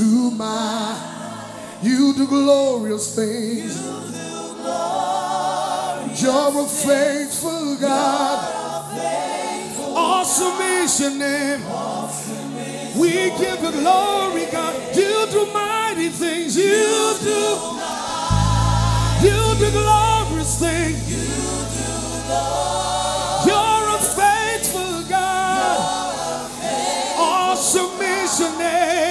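Gospel worship song sung live by a male lead singer with a choir of backing singers. A deep, sustained low note comes in about two-thirds of the way through.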